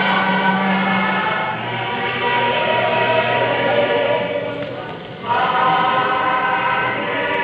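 Choral music with long held chords. It drops briefly about five seconds in, then swells again.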